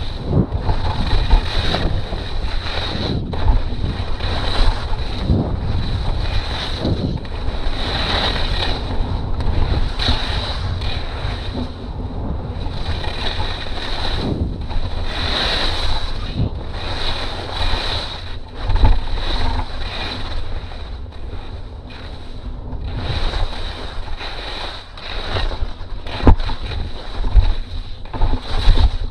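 Skis scraping over hard, wind-packed snow in repeated surges as the skier turns down a steep slope, under heavy wind buffeting on the microphone of a helmet- or chest-mounted camera.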